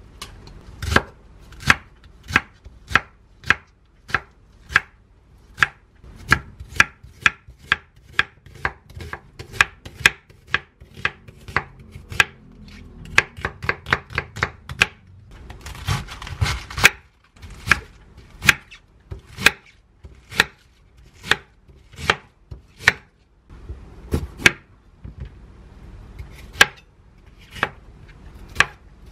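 Chef's knife chopping onion and then red bell pepper on a wooden cutting board: a steady run of sharp knocks of blade on board, about two a second, with a short scraping stretch just past halfway.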